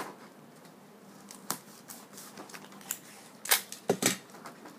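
Sticky tape being handled, torn and pressed down onto construction paper wrapped around a cardboard tube: scattered sharp clicks and crackles, with a cluster of louder snaps about three and a half seconds in.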